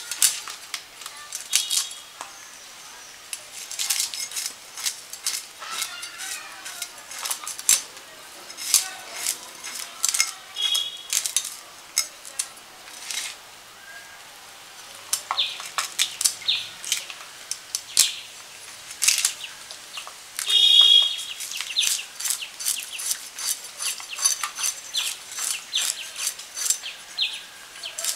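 Climbing perch being scaled and cut against the blade of a boti, the fixed, upright curved blade of a Bengali kitchen: a run of irregular short, sharp scrapes and clicks, a few each second. One brief pitched sound stands out about twenty seconds in.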